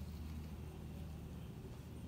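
Steady low rumble of an idling car engine, heard inside the car's cabin.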